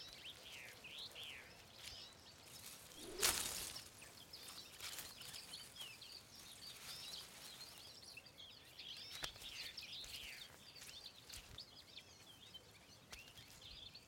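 Faint woodland ambience with small songbirds giving many short, high chirps and twittering calls. About three seconds in there is a single louder rustling thud.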